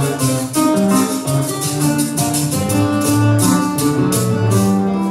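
Live Puerto Rican jíbaro music, an aguinaldo: cuatro and guitar picking an instrumental passage over hand percussion. The percussion keeps a steady beat of about three to four crisp strokes a second.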